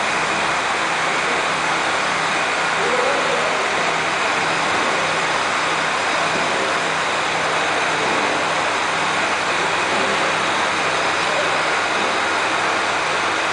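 Vacuum leak-testing machine running with a steady, even hiss while it draws vacuum on a rocker cover for the leak test.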